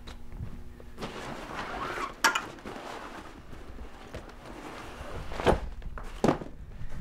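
Fabric rustling as a nylon travel bag and folding kayak seat are handled, with footsteps on carpet and three sharp knocks and thuds, one a little after two seconds and two near the end, as the gear is moved and set down.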